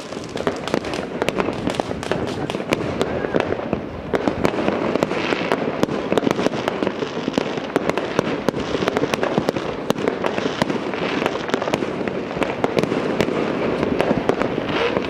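Fireworks and firecrackers going off across the town: a continuous, dense crackle of sharp pops and bangs, many a second, with no pause.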